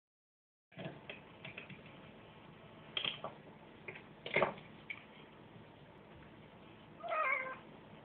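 A cat meows once near the end, a short cry that falls in pitch. Before it there are a few sharp knocks, the loudest about four seconds in.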